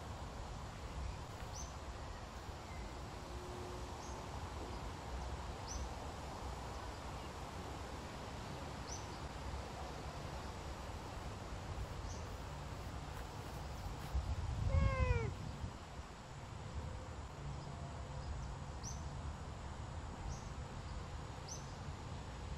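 A Savannah cat meows once, a short call falling in pitch, about two-thirds of the way through, with a low rumble around it. Faint high chirps repeat every second or two in the background.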